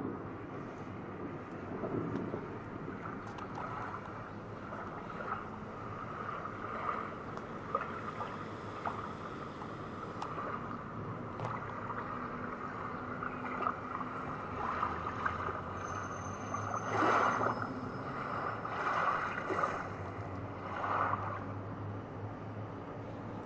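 Recorded natural water sounds played through the speakers of stainless steel sound-installation columns: a steady wash with a few louder surges near the end.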